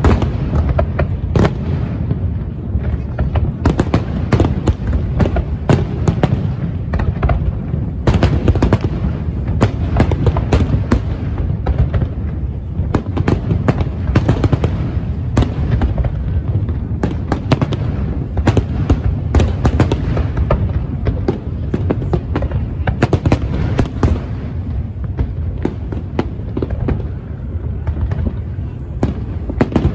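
Aerial firework shells bursting in quick, continuous succession: many sharp bangs over a steady low rumble.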